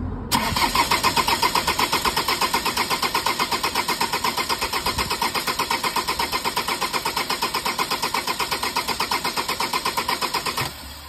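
Ford Transit 2.2 diesel engine cranking on its starter motor for about ten seconds without firing, a fast even rhythm of compression strokes that cuts off abruptly near the end. The engine has a crank-no-start fault.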